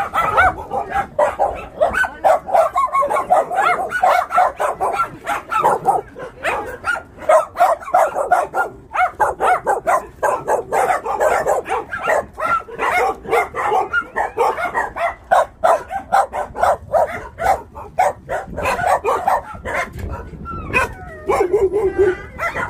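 Many dogs barking at once in shelter kennel runs, in a rapid, continuous, overlapping chorus. A short, lower, drawn-out cry comes through near the end.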